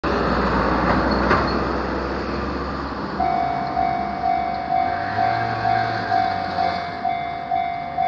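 A car passes over the crossing, and about three seconds in a Japanese level crossing's electronic warning bell starts up, a steady ringing tone pulsing about twice a second.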